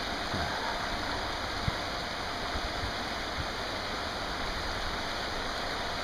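Steady rush of a mountain stream running over rocks, with one brief knock a little under two seconds in.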